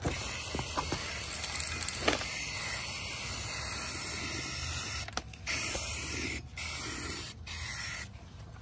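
Black aerosol spray paint, fired through a clip-on trigger spray-gun handle, hissing in one long spray of about five seconds and then three short bursts.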